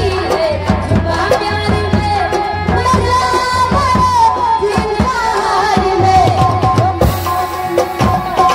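Live amplified folk stage music: a quick hand-drum rhythm under a wavering sung melody.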